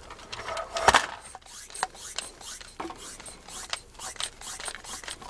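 Plastic toy-blaster parts being handled and fitted together by hand: a sharp click about a second in, then scattered lighter clicks with rubbing and scraping.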